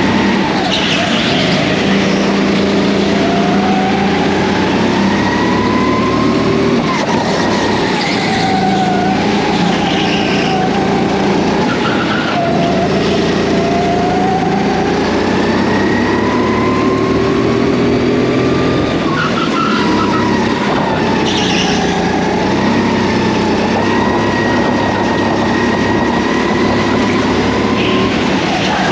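Go-kart running hard on a race lap, its motor pitch climbing over a few seconds on each straight and dropping back when it slows for the corners, several times over. A few brief tyre squeals come through in the corners.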